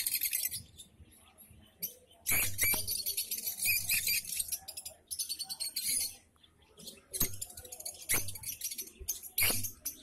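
Flock of caged peach-faced lovebirds chattering in shrill, high-pitched bursts of rapid chirps, with quieter gaps between bursts and a few sharp clicks.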